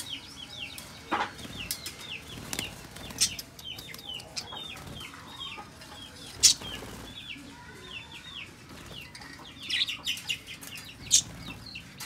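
Budgerigars chattering in rapid short chirps and fluttering their wings as they flap about inside a wire cage, with several sharp clicks and rattles from the cage's wire door being handled; the loudest click comes about six and a half seconds in.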